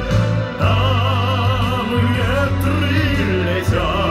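A male baritone sings long held notes with a wide vibrato into a microphone over a pop backing track, amplified through a stage sound system. New notes begin about half a second in and again near the end.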